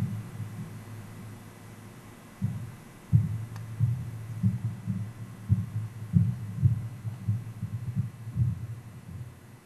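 Irregular low thumps and rumble picked up through the podium's public-address microphone as people move at the podium, starting a couple of seconds in and going on at an uneven pace.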